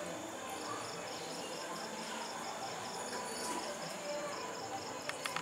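Wooden spatula stirring rice and lentils through water in a non-stick pan, soft sloshing. Over it a high, thin chirp repeats about four to five times a second, pausing briefly near the start.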